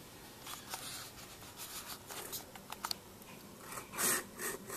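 Handling noise from the camera being moved about: scratching and rubbing on the microphone with a few light clicks, and a louder rustle about four seconds in.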